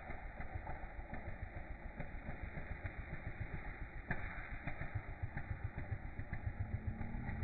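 An engine running at idle, a rapid low putter with a few sharper knocks.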